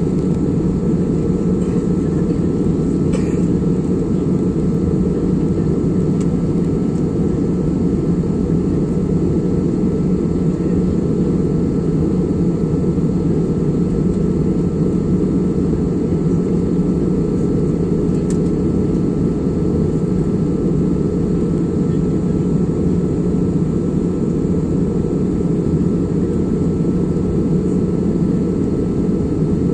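Airliner cabin noise in flight: a steady low drone of engine and rushing air, with a faint high steady tone above it.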